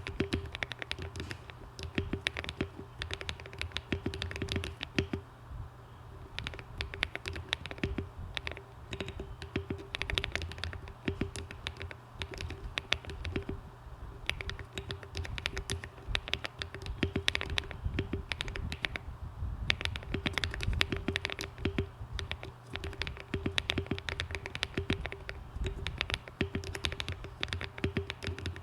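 Continuous fast typing on a Monsgeek M1 aluminium-case mechanical keyboard with hand-lubed Akko Cream Yellow linear switches, tape-modded and foam-dampened, with ASA-profile keycaps: an uneven stream of many sharp key clicks a second, with short lulls.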